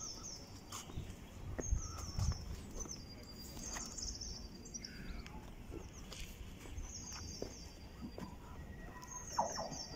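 A small songbird singing a short phrase of high notes that steps down in pitch, repeated about every two to three seconds. Low rumbling thumps come in about two seconds in.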